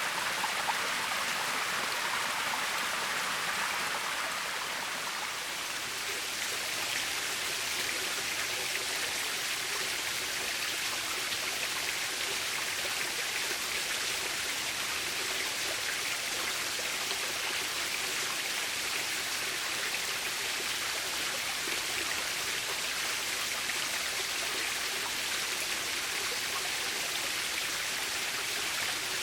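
Small mountain waterfall: water pouring and splashing with a steady rushing hiss, its tone shifting slightly about five seconds in.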